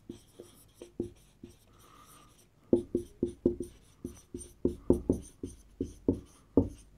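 Marker pen writing on a whiteboard: a run of short, separate strokes, sparse at first and busier from about three seconds in.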